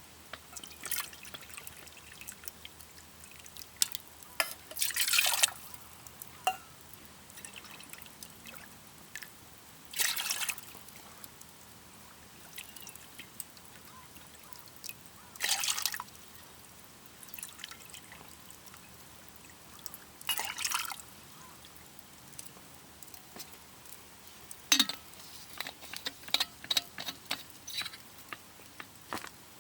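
Short splashes of water, one about every five seconds, then a run of small clicks and taps near the end.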